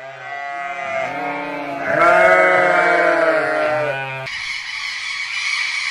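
A farm animal's long drawn-out call, rising and falling in pitch for about four seconds, loudest in the middle. It cuts off abruptly to a steady hiss-like noise.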